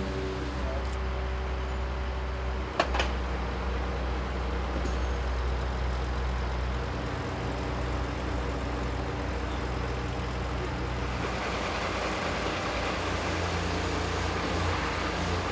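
Crane's diesel engine running steadily, with one sharp metallic clank about three seconds in. From about eleven seconds in, a higher rushing sound joins the engine.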